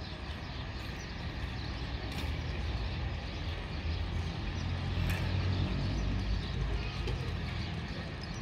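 Low rumble of a passing vehicle that swells to its loudest about five seconds in, then eases off.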